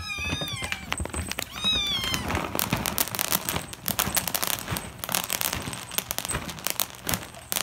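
Kittens meowing in high, rising-and-falling cries for about the first two seconds, then many quick clicks and crunches as they eat dry kibble scattered on a plastic tub lid.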